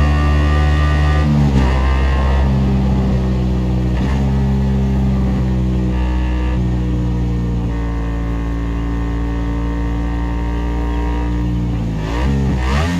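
Ducati Desmosedici RR's D16RR V4 engine running at a steady speed on the move. Its pitch shifts about a second and a half in, then swings up and down near the end.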